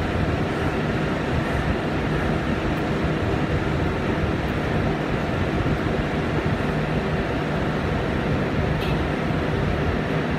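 Steady low drone of a ship's diesel engine, with a constant rushing noise over it.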